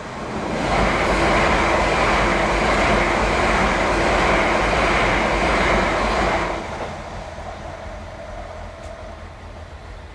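Electric passenger train rushing past close by over a level crossing. The noise builds in the first second, stays loud for about six seconds, then drops off suddenly as the last carriage clears, leaving a lower rumble.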